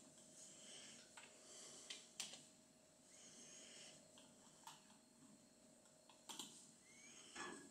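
Near silence with faint, scattered clicks of typing on a computer keyboard and clicking a mouse, over a faint steady hum.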